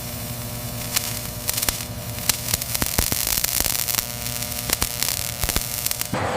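Steady electrical hum under a hiss, with many scattered sharp clicks and crackles.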